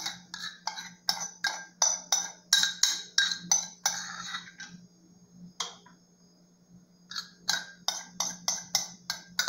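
Rapid light clinks of a utensil against dishware, about three a second, stopping for a couple of seconds midway and then starting again.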